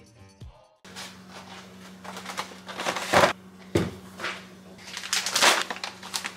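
Groceries and packaging being handled and set down on a kitchen countertop: several knocks and crinkling rustles over a steady low hum.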